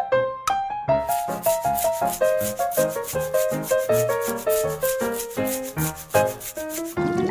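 Cartoon background music: a bouncy melody of short notes, joined about a second in by a fast, scratchy rhythmic percussion that runs on until the music changes near the end.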